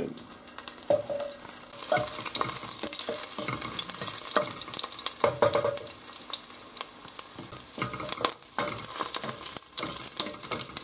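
Crushed garlic cloves frying in hot olive oil in a stainless steel pot: a steady sizzle that picks up about two seconds in. A wooden spoon knocks and scrapes against the pot as the garlic is stirred.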